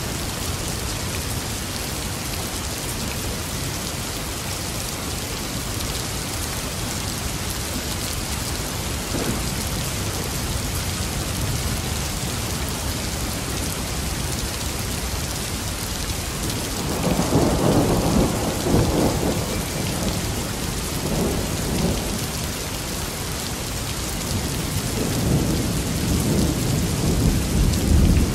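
Thunderstorm: steady rain hissing throughout, with rolling thunder that swells a little over halfway through, dies back, and builds again near the end.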